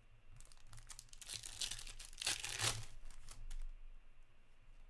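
A foil trading-card pack wrapper is torn open and crinkled in the hands, a run of tearing and rustling that is loudest about two and a half seconds in.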